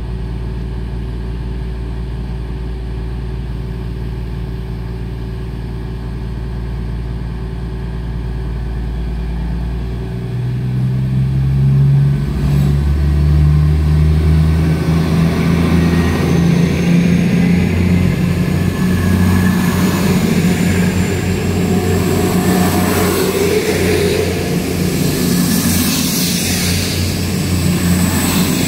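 Class 222 Meridian diesel-electric multiple unit, with an underfloor Cummins QSK19 diesel engine under each car, idling steadily. About ten seconds in, the engines open up to full throttle and the train pulls away, the engine note rising and growing louder, with wheel and rail noise building as the carriages pass.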